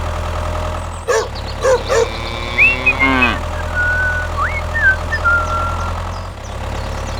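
A steady low engine drone, like a machine idling. About a second in come a few short squeaky yelps, then high whistled chirps through the middle.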